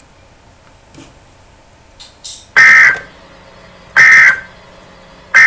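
Emergency Alert System end-of-message data bursts: short, harsh, buzzing blasts of digital tones, the repeated 'NNNN' code that closes an EAS alert. Two come about a second and a half apart, and a third starts at the very end.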